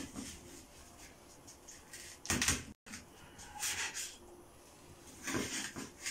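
Kitchen knife cutting meat on a wooden cutting board: a few separate short scraping strokes, the loudest a little over two seconds in, with a brief cut-out of all sound just after it.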